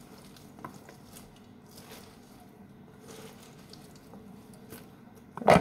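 Faint soft squishing and rustling of shredded chicken and diced vegetables being mixed by hand in a bowl, with a few small clicks, and one louder sharp knock near the end.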